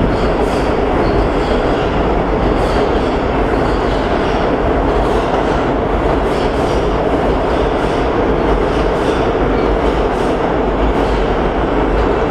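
R160 subway train pulling out of an underground station: a steady, loud rumble with a regular light clatter from the wheels on the rails.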